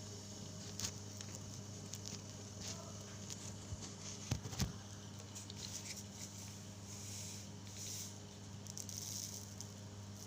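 Spiced tea (kadha) simmering in a pan: faint bubbling and patter, with a few light clicks about four seconds in, over a steady low hum.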